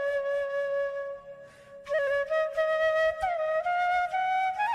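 Background music: a single melodic line holds one long note, breaks off briefly about a second and a half in, then climbs step by step to higher notes.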